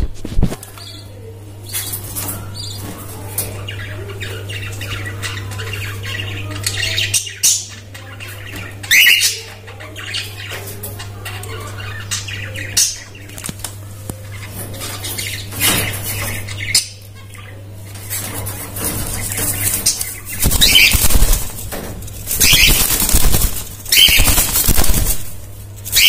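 Cockatiels flapping their wings in the cage and giving a few short, sharp squawks. The wing-flapping comes as repeated loud flurries in the last several seconds.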